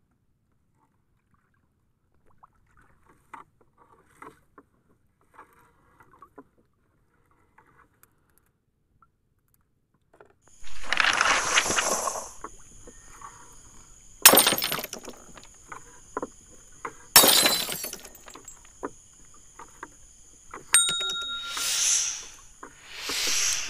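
Almost silent for about ten seconds. Then come the sound effects of a subscribe/end-screen animation: a whoosh, two sharp clicks a few seconds apart over a thin high tone, a brief chime, and two more whooshes near the end.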